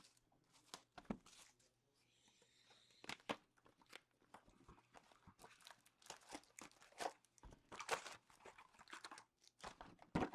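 A large knife cutting open sealed trading-card boxes: plastic wrap crinkling and cardboard tearing, with irregular scrapes and clicks, busier in the second half.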